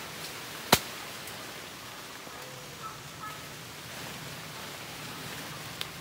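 Steady outdoor background hiss under a tree canopy, with one sharp knock about three-quarters of a second in.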